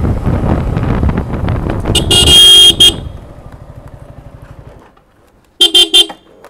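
Motorcycle engine running, with a long horn blast about two seconds in; the engine then drops to a pulsing idle and cuts off. Near the end, three short horn toots.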